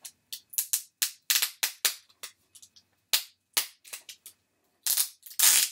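Thin plastic packaging crinkling in many quick, sharp snaps as it is handled, with a longer rustle near the end.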